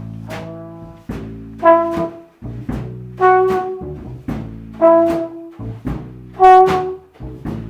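Jazzy music led by a trombone playing a short accented phrase about every second and a half, four times, over a low sustained bass line.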